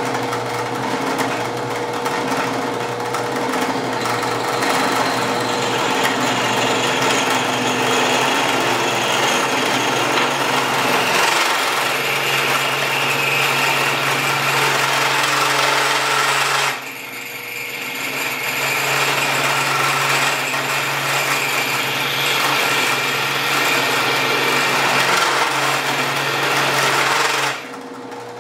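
Drill press spinning a cast fiberglass-resin piston while a nail ground to a chisel edge cuts an O-ring groove into it, the tool chattering against the resin. The chatter grows louder about a third of the way in, breaks off for a moment past halfway, resumes, and stops shortly before the end. The maker puts the chatter down to the nail's slanted edge wedging into the material.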